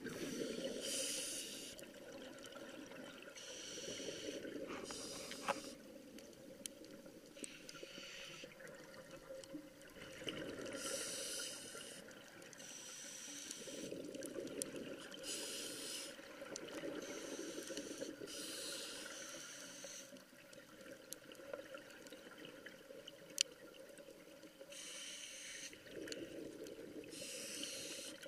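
A scuba diver breathing through a regulator underwater: hissing inhalations every few seconds alternating with the burble of exhaled bubbles. Two sharp clicks stand out, one about five seconds in and one near the end.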